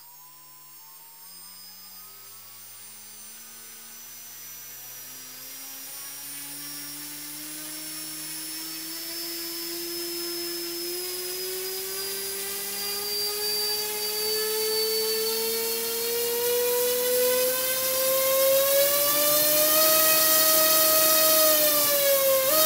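Quadrotor brushless outrunner motor clamped in a vise, spinning a propeller and speeding up: a whine that climbs steadily in pitch and grows louder throughout. Near the end it levels off, dips briefly, then jumps back up.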